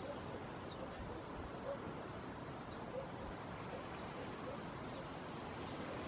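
Steady outdoor background noise, an even low rumble and hiss, with faint short low notes repeating about twice a second.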